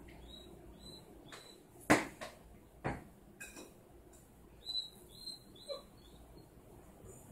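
A dog whimpering in short, high squeaks, a few near the start and then four in quick succession about five seconds in. Two sharp knocks ring out, the loudest about two seconds in and another about a second later.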